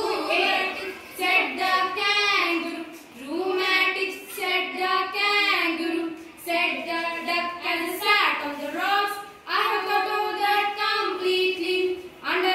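Girls' voices singing in phrases with long held notes, with no instrumental accompaniment.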